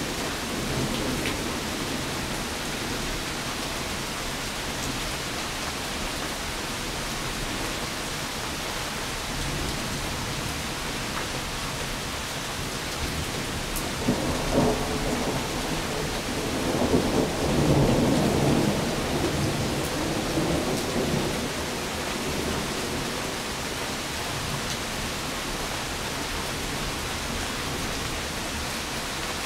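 Steady rain, with a roll of thunder rumbling for several seconds about halfway through.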